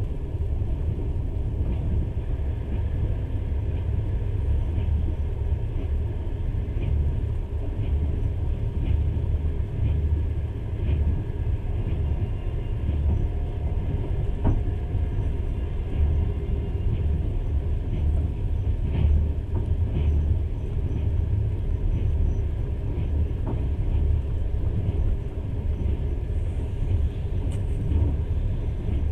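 Moving passenger train heard from inside the carriage: a steady low rumble of the wheels on the track, with a few faint clicks scattered through it.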